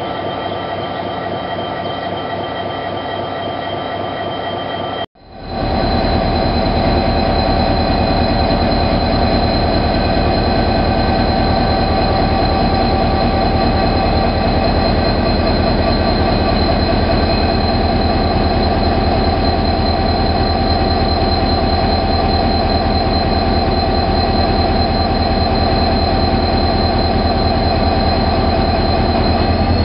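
TCDD DE 33000-class diesel-electric locomotive's EMD 16-645E3C two-stroke V16 diesel running steadily, with a throbbing low engine note and a steady high whine. The sound cuts out for a moment about five seconds in and comes back louder. Near the end its pitch starts to rise as the engine revs up.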